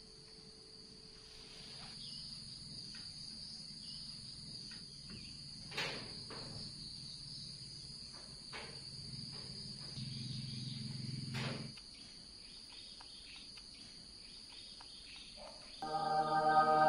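Steady high-pitched drone of insects, with a low hum underneath that cuts off about two-thirds of the way through and a couple of sharp knocks. Background music comes in loudly near the end.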